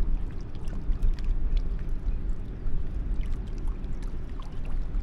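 Small waves lapping and splashing against the rocks at the water's edge, with scattered little splashes, over a low, uneven rumble.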